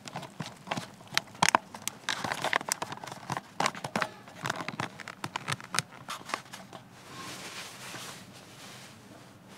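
A foil-lined freeze-dried meal pouch crinkling and crackling in irregular sharp bursts as it is handled and torn open at the top. A steady hiss follows about seven seconds in.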